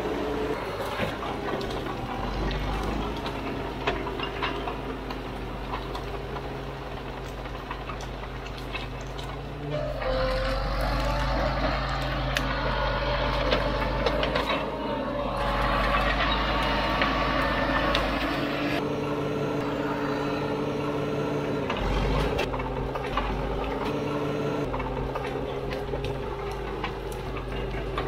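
Vintage Caterpillar D4 7U crawler dozer's diesel engine running steadily with clattering tracks and small cracks of brush. From about ten seconds in, the engine rises in pitch and gets louder for several seconds as it takes load on the blade, then settles back.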